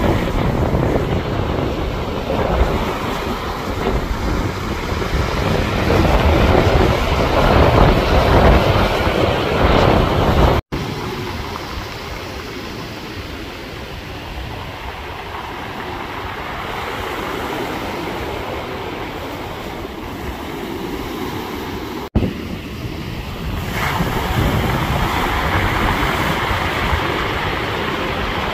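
Storm wind rushing and buffeting the microphone as a loud, even noise, heaviest in the first ten seconds. It cuts off abruptly twice, about 11 and 22 seconds in, where separate clips are joined.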